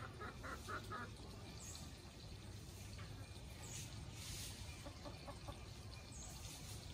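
A chicken clucking in a quick run of short calls in the first second, with fainter clucks around the middle. A high short chirp repeats every two seconds or so.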